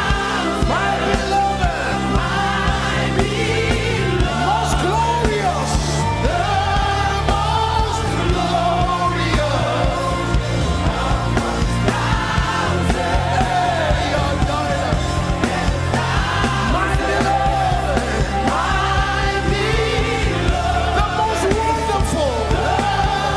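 Live gospel worship music: sung melody over a band with a steady bass line and sustained keyboard chords.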